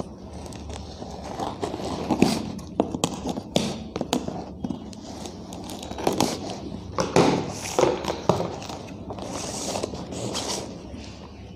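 Scissors cutting and scraping along packing tape on a cardboard box, with irregular snips, scrapes and crackles as the tape is slit and the box is handled.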